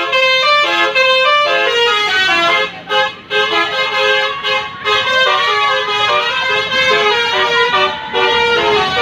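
Tourist bus's telolet horn, a multi-trumpet air horn playing a melody of short notes that step up and down in pitch, with a brief break about three seconds in.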